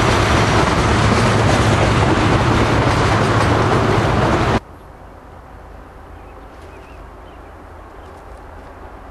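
Freight train of railroad tank cars rolling past, a loud steady rumble of wheels on rail with a low hum. It cuts off suddenly a little under halfway through, leaving only faint background noise.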